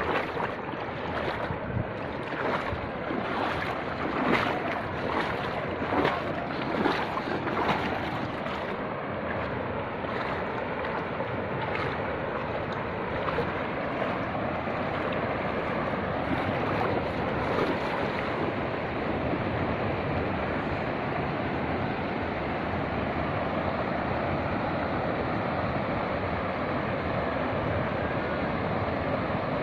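Floodwater rushing past in a steady, unbroken wash of water noise, with irregular surges and splashes through the first nine seconds or so.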